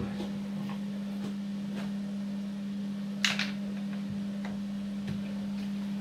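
Small clicks and taps of a screwdriver and screws being fitted into a plastic pump housing, with one sharper click about three seconds in, over a steady low hum.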